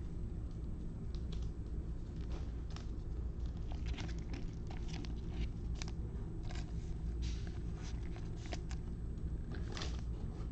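Trading cards being handled, with soft irregular clicks and rustles of cards and card stock sliding and tapping, over a steady low hum.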